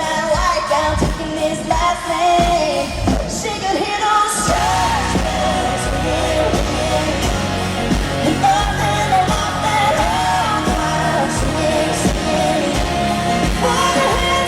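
Live concert audio of a woman singing a country-pop song over a full band, the low end of bass and drums coming in much heavier about four seconds in.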